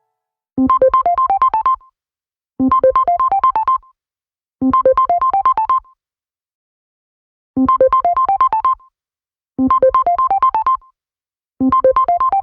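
LG K4 LTE phone ringtone: short bursts of quick, bright notes climbing in pitch, each about a second long, three in a row, a pause, then three more.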